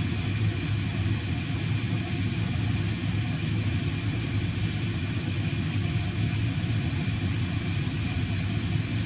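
Steady low mechanical hum with an even hiss over it, unchanging in pitch and level.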